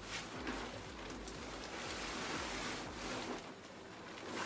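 Plastic tarp rustling and crinkling as it is unfolded and pulled out by hand, in uneven swells.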